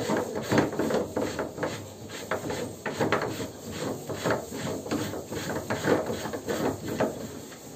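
Hands working the PVC butterfly valve and plastic pipe flanges into place: irregular rubbing and scraping of plastic on plastic, with small knocks.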